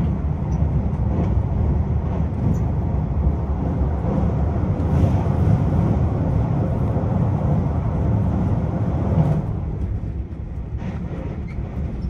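Running noise inside the cabin of an electric limited express train: a steady low rumble of wheels on rail, easing off somewhat about nine seconds in.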